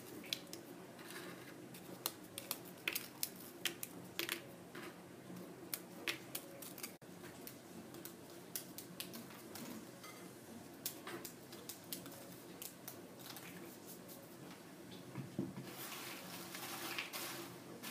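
Dry petit-beurre biscuits snapped by hand into small pieces: a string of irregular, crisp little snaps. Near the end a spatula starts stirring the biscuit pieces through the wet cocoa mixture in a bowl, a denser rustling scrape.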